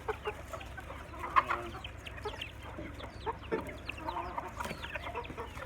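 A flock of chickens clucking continuously: many short, overlapping clucks, with one louder call about a second and a half in.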